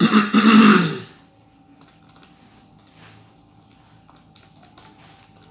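A man's brief vocal sound, then a quiet stretch with a few faint, scattered clicks and light rustling from his hands at the desk, over a faint steady hum.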